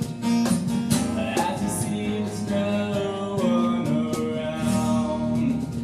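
Two acoustic guitars strumming with a man singing, live; the strumming thins out about halfway through into fewer, ringing chords.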